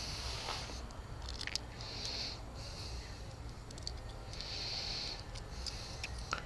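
Close breathing puffs, repeated every couple of seconds, with a few faint small clicks of something handled, over a low steady hum.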